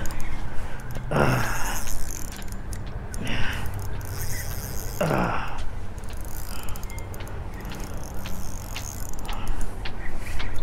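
Fishing reel being cranked to retrieve the line, its mechanism clicking and ticking. Three short swishes come about one, three and five seconds in.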